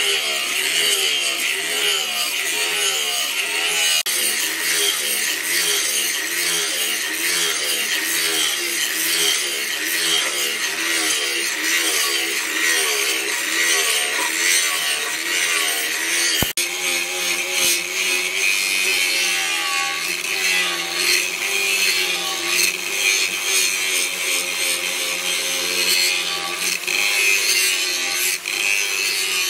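Electric angle grinder with an abrasive disc grinding the spring steel of a leaf-spring machete blade, a continuous rasping whine whose pitch wavers as the disc is pressed into the metal. A single sharp click and a brief dip come about halfway through.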